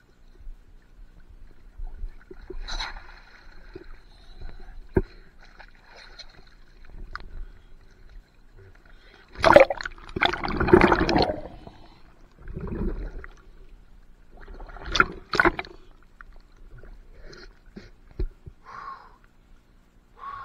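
Water splashing and gurgling around a scuba diver floating at the pond surface, loudest in a sloshing stretch about halfway through when the camera goes under. Short breaths or voice sounds near the end as cold water rushes into the diver's suit.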